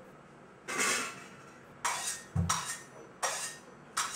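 Sharp metallic clinks and clatters of small metal objects being handled, four or five of them about a second apart, with a dull knock in the middle.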